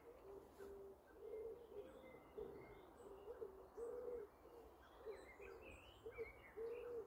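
Faint pigeon cooing: a run of short, low, rounded coo notes repeated irregularly, with a few faint small-bird chirps higher up.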